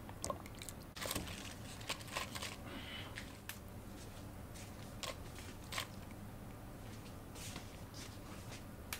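Bok choy leaves being handled and pressed into a steel cooking pot: scattered soft crunches, rustles and light clicks, busiest in the first few seconds, over a steady low hum.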